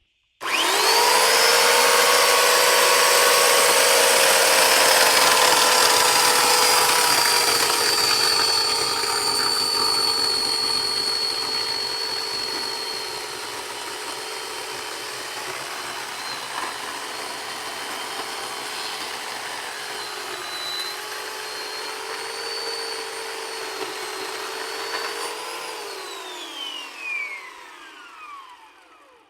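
An electric power tool motor starts up, rising quickly to speed, and runs at a steady pitch for about 25 seconds, louder over the first half. Near the end it is switched off and winds down, its pitch falling away for a few seconds.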